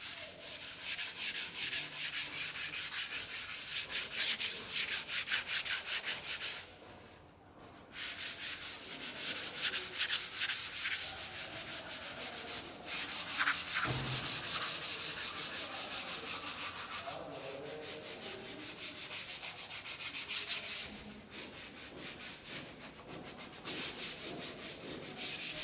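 Sandpaper rubbed back and forth over a surface in fast strokes, a dry scratchy hiss. It pauses briefly a few times, once for over a second about seven seconds in.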